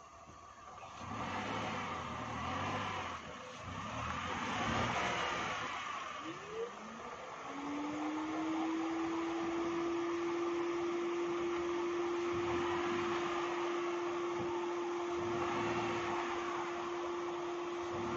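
Renault Triber's three-cylinder petrol engine working as the car crawls over a rocky dirt track. The sound is uneven at first, then a short rise settles into one steady held note from about seven seconds in.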